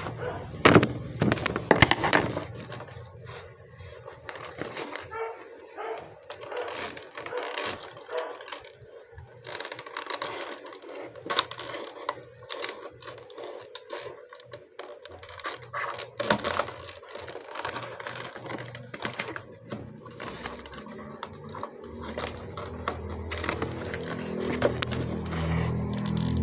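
Packaging of a puzzle cube being handled and opened: irregular crackling, clicks and taps. A low hum builds over the last few seconds.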